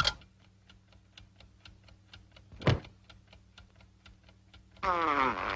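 Snoring: a short, loud snort about halfway through, then near the end a long wavering snore whose pitch slides up and down. Under it runs a steady fast ticking, about four or five ticks a second.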